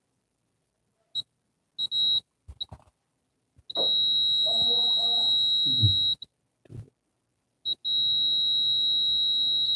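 Digital multimeter's continuity buzzer beeping as its probes touch the terminals of a mobile phone ringer: a few short chirps, then a long steady high beep of about two and a half seconds, and another long beep starting near the end, over probe handling noise. The beep shows continuity through the ringer's coil.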